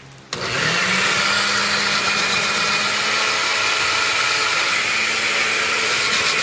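Countertop blender with a glass jar switched on about a third of a second in, its motor spinning up and then running steadily as it blends a thick mix of mayonnaise, yogurt and cilantro.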